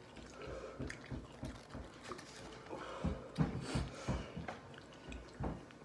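People eating chicken wings: irregular chewing and wet mouth noises, with scattered short low thumps, busiest about three to four seconds in.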